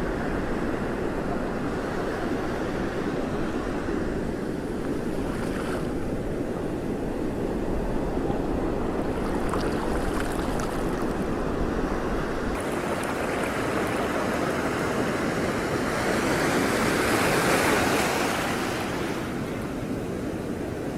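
Wind buffeting the microphone over moving water, a steady rushing noise with no engine tone, swelling louder for a couple of seconds near the end.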